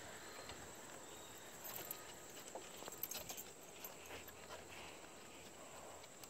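Faint, scattered taps and clicks of footsteps and small dogs' paws on a wooden deck, a little busier about two to three seconds in.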